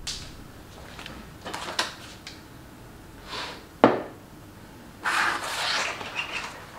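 Objects being set down and handled on a wooden desk: scattered soft clicks, one sharp knock just before the four-second mark, then a rustle from about five seconds in as a notebook is opened and handled.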